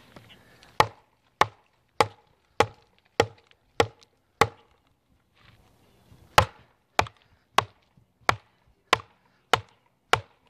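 Wooden baton knocking on the spine of a TOPS El Chete, a quarter-inch-thick 1095 steel cleaver-knife wedged in a log, driving it through very tough wood. Sharp knocks come about one and a half a second: seven in a row, a pause of about two seconds, then another steady run.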